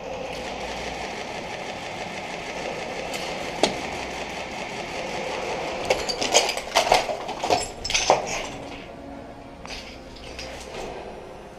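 Hurried footsteps over rubble and broken debris, crunching and clinking underfoot, thickest from about six to eight seconds in. A single sharp click comes a few seconds before them.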